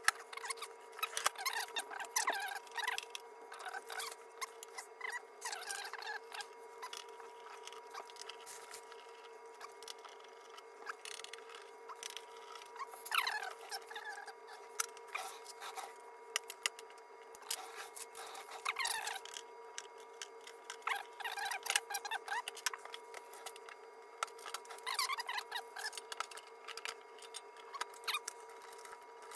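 Screwdriver backing screws out of a guitar multi-effects floor unit: repeated short squeaks as the screws turn, among clicks and small knocks of tools and parts.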